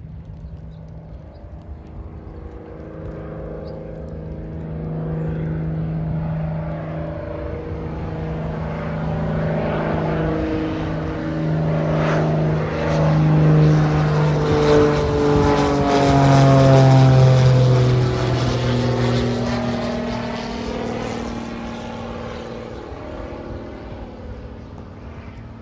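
Twin-engine propeller airplane flying low overhead. Its propeller drone, with a strong low hum, grows louder, drops in pitch as it passes about two-thirds of the way through, then fades away.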